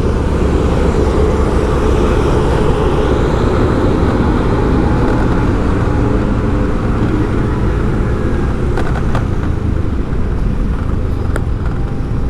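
Steady vehicle engine and road noise from travelling along a city street, with a low, even rumble.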